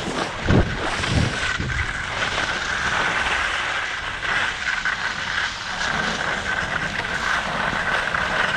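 Wind rushing over the microphone of a camera carried down a ski slope at speed, with the hiss of riding over groomed snow and a steady high whine through it. A few low thumps come in the first second and a half.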